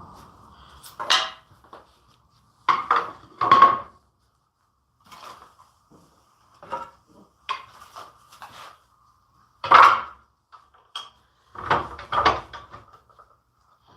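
Wooden pieces and tools being handled and set down on a workbench: about a dozen scattered knocks and clacks at irregular intervals, over a faint steady hum.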